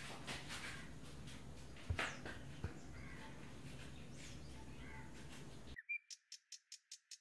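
Faint outdoor ambience with birds chirping and two soft knocks about two seconds in. Near the end the sound cuts abruptly to a thin, high series of rapid chirps, about five a second.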